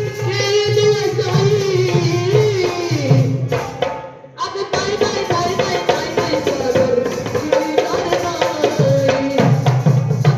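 Live folk song: a voice sings a held, wavering melodic line over a steady hand-drum beat with other percussion. The music briefly drops away about four seconds in, then resumes.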